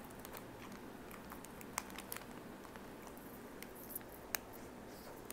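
Faint crinkling of a plastic ice cream wrapper being peeled open by hand, with a few sharp crackles scattered through it.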